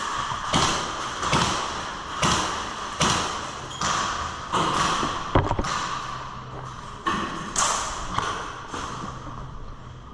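Footsteps at a steady walking pace, about one step every 0.8 seconds, with a sharp click about five and a half seconds in.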